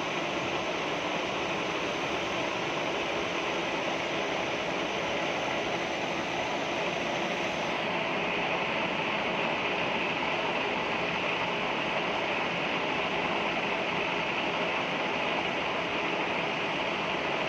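Metal lathe running steadily, an even dense mechanical noise with no distinct strokes. About eight seconds in, the highest hiss drops away.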